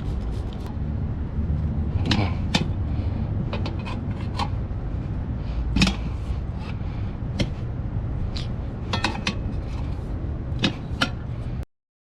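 Metal tire irons clinking and knocking against a motorcycle wheel rim while a tire is being levered on, a dozen or so sharp clanks scattered over a steady low rumble.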